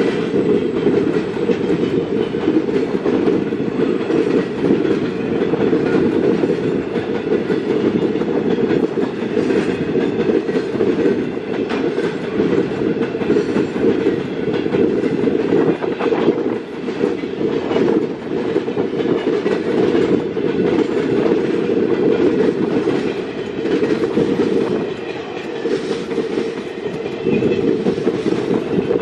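Freight train wagons rolling past in a steady rumble, with scattered clicks of wheels over rail joints.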